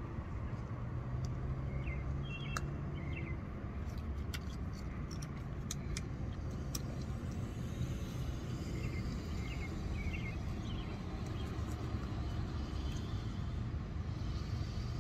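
Steady low rumble of distant road traffic, with faint short chirps now and then and a scatter of light clicks in the first half.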